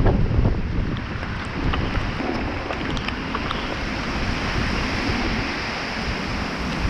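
Tropical-storm wind buffeting the microphone, a steady rushing noise with heavy low rumble.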